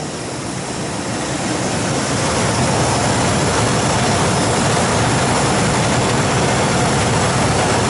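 Walk-in cooler condensing unit running steadily: compressor and spinning condenser fan. The compressor is pumping down during a defrost cycle, drawing the R-404A refrigerant out of the evaporator coils while the liquid-line solenoid is closed and the suction pressure falls.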